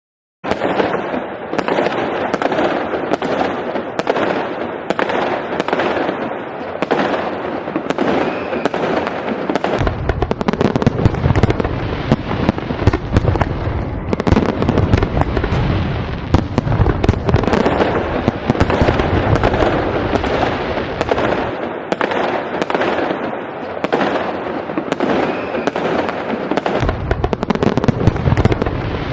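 Fireworks display going off in a continuous barrage: dense crackling with many sharp bangs, and deeper booms added from about a third of the way in.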